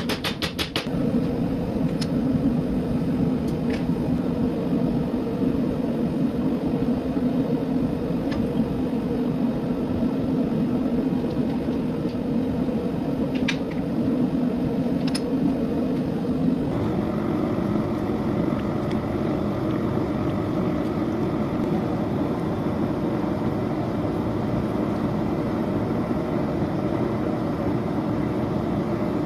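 Steady whirring rumble of a running shop machine, with a few faint clicks early on its tone shifting and brightening slightly about two-thirds of the way through.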